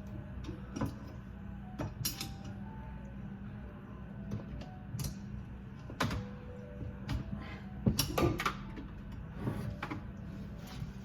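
Scattered knocks, clicks and clatters of things being handled, one every second or so, the loudest about six and eight seconds in, over a steady low hum.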